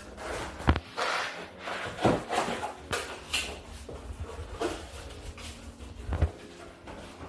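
Irregular knocks and clatters, about a dozen in a few seconds, over faint steady tones.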